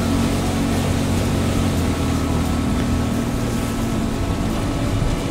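Motorboat engine running steadily under way, with a continuous rush of water along the hull.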